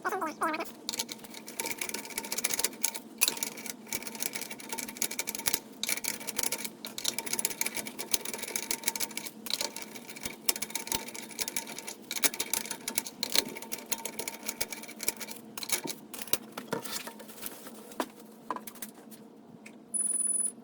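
Rapid mechanical clicking and rattling from a socket tool on a 17 mm lug-nut socket, loosening the rear wheel's lug nuts. A short high-pitched tone sounds near the end.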